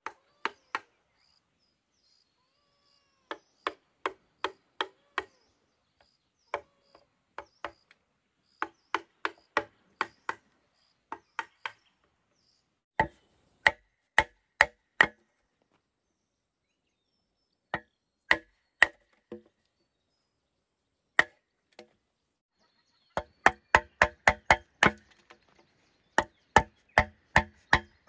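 A blade chopping bamboo: sharp strikes in runs of two to eight, a few per second, with short pauses between runs and a hollow ringing to each blow.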